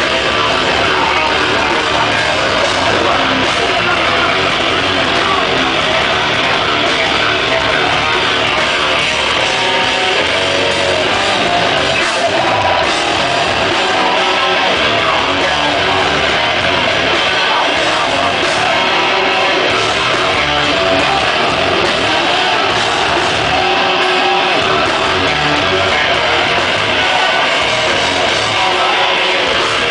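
Live rock band playing loud, steady and dense: electric guitars, bass guitar and drums.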